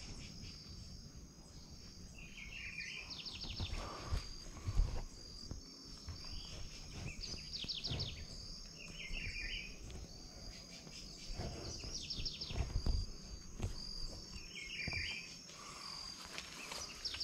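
Rural dawn ambience: birds calling over and over, a quick descending trill and a short warbled call each repeating every several seconds, over a steady, pulsing high insect chirr. A few low thumps sound near the start.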